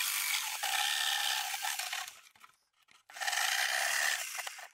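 Two long rasping strokes, each about two seconds with a short break between, from the edge of an RC car body being filed down.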